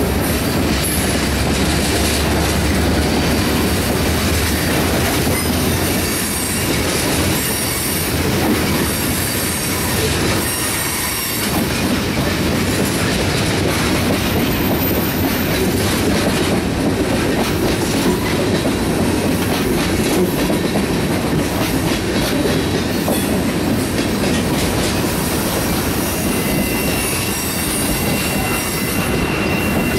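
Freight train cars rolling steadily past, wheels clacking over the rail joints, with a thin high squeal from the wheels.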